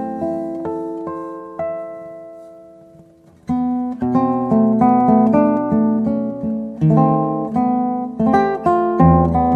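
Acoustic guitar playing a slow instrumental passage: picked notes ring and fade away, then strummed chords come back in about three and a half seconds in.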